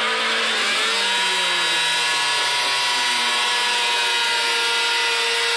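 Vehicle engine running steadily under a loud rushing noise; its pitch drops about a second in.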